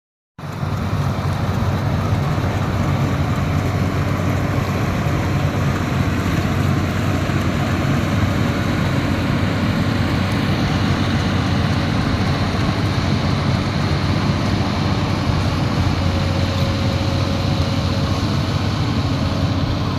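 Geomembrane welding equipment running steadily: a machine's continuous hum with an even hiss over it, starting abruptly about half a second in.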